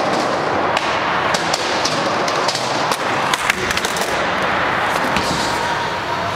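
Skateboard rolling on a mini ramp: a steady rolling noise of the wheels with several sharp clacks and knocks of the board and trucks striking the ramp and coping, a quick cluster of them about three and a half seconds in.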